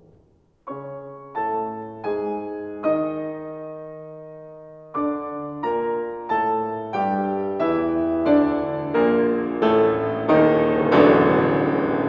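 Solo piano playing a string of struck chords. They start about half a second in after a brief hush, with one chord held for a couple of seconds. The repeated chords then come about every half second and grow steadily louder.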